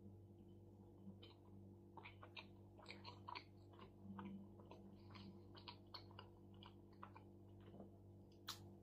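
Faint chewing of a juicy shawarma: a run of quick, irregular mouth clicks over a low steady hum, with one sharper click near the end.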